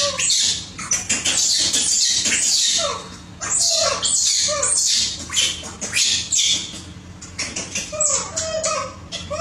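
Baby macaques crying, a string of short squealing calls that fall in pitch, with harsh high screechy bursts between them.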